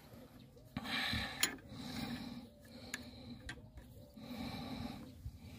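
Faint clicks and scraping of a spanner working a metal fitting, in several short spells.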